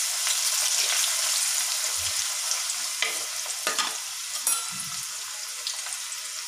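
Chopped onion sizzling in hot spiced oil, the start of frying for a tempering, while a wooden spatula stirs it and scrapes the pot a few times. The sizzle slowly dies down.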